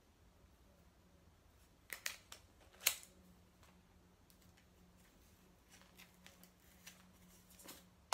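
Hair rollers being pulled out of hair: faint brief rustles and clicks, the sharpest two about two and three seconds in, then a few softer ticks near the end.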